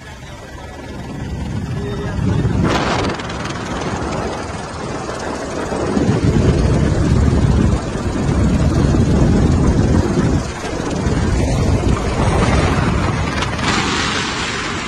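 Helicopter engine and rotor noise heard from inside the cabin, a heavy steady din that swells louder in the second half.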